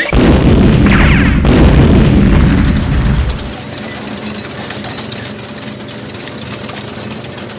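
Cartoon explosion sound effect: a loud boom with a heavy rumble that lasts about three seconds, then drops to a quieter steady rumble and hiss.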